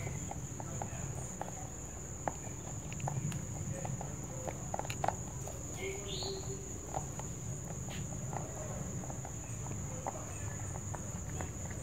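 A rabbit crunching hard dry pellets from a bowl, heard as irregular small clicks, over a steady high insect drone. One short rising chirp comes about six seconds in.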